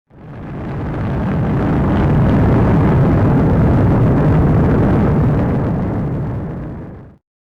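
Cumbre Vieja volcano erupting: a continuous deep rumble that fades in over about a second and stops sharply near the end.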